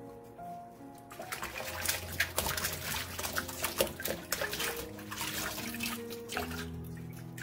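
Water splashing and sloshing as a bunch of perilla leaves is dunked and shaken in a stainless steel bowl of water, starting about a second in, over background music.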